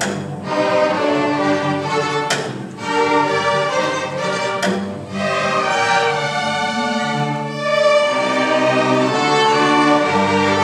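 String orchestra of violins, violas, cellos and double basses playing sustained bowed notes, with sharp accented strikes near the start, about two and a half seconds in and near five seconds. The music grows louder about eight seconds in.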